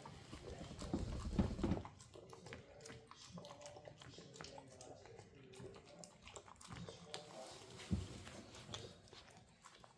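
Mastiff puppy making soft pitched vocal sounds, with a few heavy bumps in the first two seconds and another near the end.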